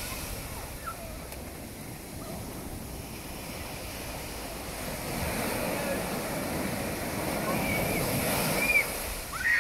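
Sea surf washing over the shallows, swelling about halfway through as a wave breaks. Near the end come a few short, high cries from children in the water.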